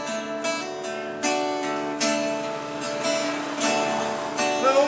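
Acoustic guitar (violão) playing strummed chords, a new chord struck about once a second and left to ring.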